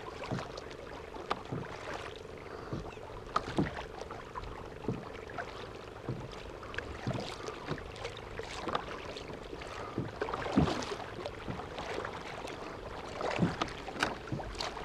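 Kayak paddle strokes in shallow water from an Emotion Stealth Angler 11 fishing kayak: irregular splashes and short knocks of the paddle against the hull, about one every second. A faint steady hum runs underneath.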